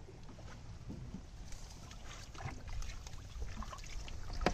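Water trickling and splashing as a weed-tangled bundle of bamboo sticks is lifted and moved through shallow water, with scattered light taps. A low steady rumble runs underneath, and a sharp click comes right at the end.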